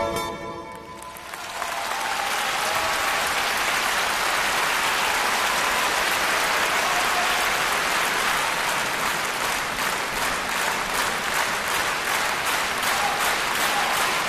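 The last plucked notes of a balalaika die away, then a large audience breaks into applause about a second in. The applause swells quickly and holds steady, with the claps falling into a regular beat in the second half.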